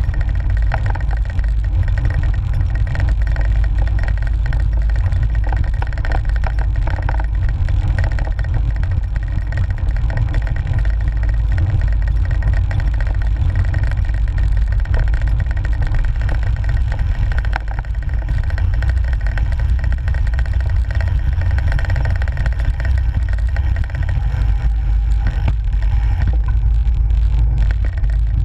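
Steady wind and road rumble on the microphone of a handlebar-mounted GoPro on a moving cyclocross bike, a dense low rumble with a hiss over it.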